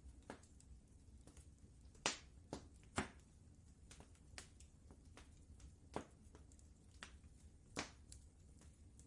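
Wood fire crackling in a fireplace: scattered sharp pops at irregular intervals, the loudest about two and three seconds in and again near the end, over a faint low rumble.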